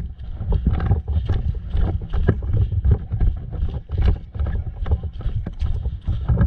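Irregular footsteps and knocks of a player moving with gear, with heavy low rumble from handling and wind on a body-worn action camera's microphone.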